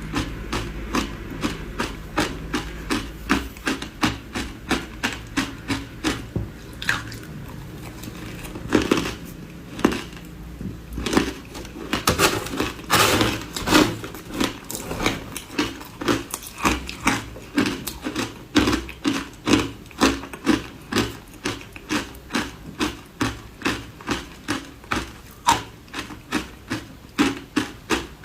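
Ice being bitten and chewed close to the microphone: a steady rhythm of crunches, about two a second, with a few louder, longer crunches around the middle.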